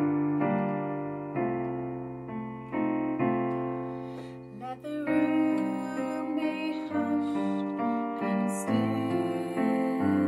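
Solo piano playing slow held chords, each struck and left to ring and fade before the next.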